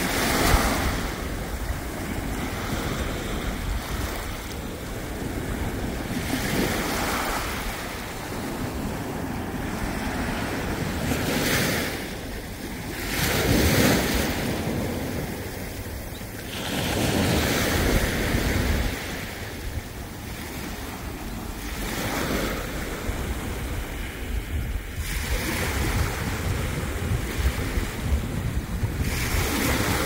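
Small sea waves washing and lapping onto a rocky sand beach, the wash swelling and falling back every few seconds, with wind rumbling on the microphone.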